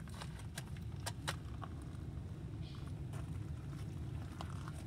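Light clicks and knocks of firearms being handled and set down on a vehicle's carpeted cargo floor, the sharpest two about a second in, over a steady low rumble.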